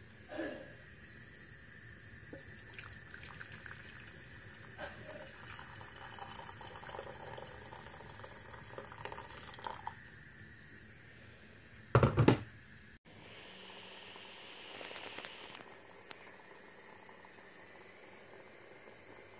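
Water heating and boiling in a stainless steel saucepan on a gas burner: a faint steady hiss with a few light clinks. About twelve seconds in there is a single loud thump. Then the pan of pasta bubbles at the boil, the sound swelling briefly.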